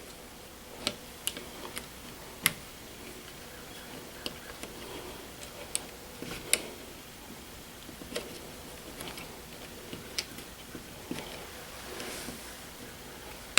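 Irregular light clicks and taps as a thermostat wire is worked and pushed into the terminal of a Nest thermostat base, a dozen or so over the stretch, with soft handling rustle between them.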